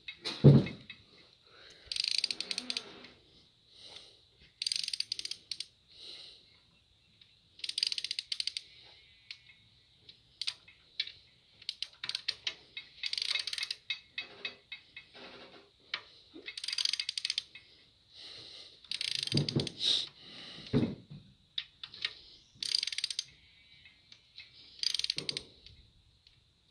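Hand ratchet on a swivel extension tightening the bolts of an engine adapter plate: short bursts of rapid ratchet clicking every couple of seconds as the handle is swung back. There is a loud thump about half a second in, and two duller knocks about three-quarters of the way through.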